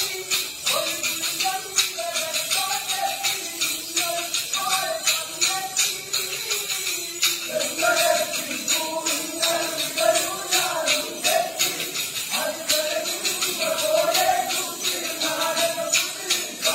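Kolkali stick dance: short wooden sticks clacking sharply against one another in quick rhythm, over a group singing the accompanying folk song.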